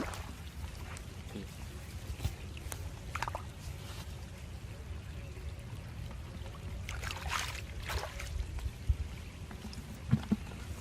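Water splashing and trickling in a few short bursts over a low steady rumble.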